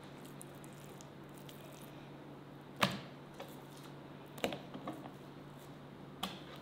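A few short, sharp knocks of a chef's knife and raw chicken breast on a plastic cutting board, the loudest about three seconds in, with a couple more near the end, over a faint steady hum.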